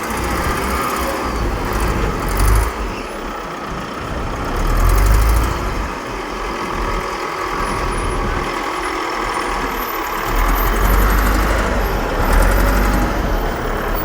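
Diesel engines of heavy machinery, such as a dump truck and loader, running in the sand. The deep rumble swells and eases several times.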